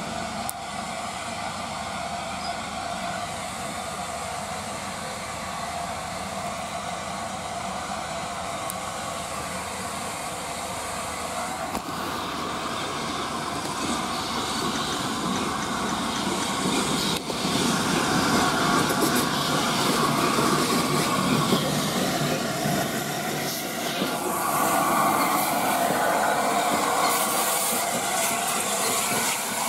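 LNER A4 Pacific steam locomotive running light on the adjacent track, drawing closer and passing. Its steady running sound grows louder from about halfway through.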